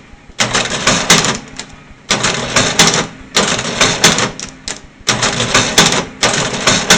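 National Cash Register 6000 ringing up items: four clattering register cycles of about a second and a half each, separated by short pauses, with a fifth starting at the end.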